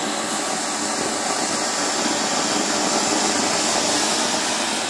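Anar (flower-pot fountain firework) spraying a column of sparks with a loud, steady hiss.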